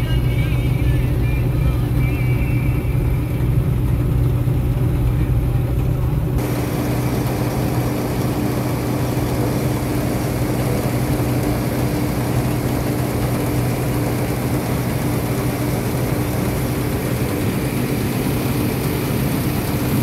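A New Holland TX34 combine harvester running steadily while cutting wheat, heard from inside the cab: engine drone and threshing machinery. About six seconds in, the sound changes abruptly to a harsher, broader machinery noise.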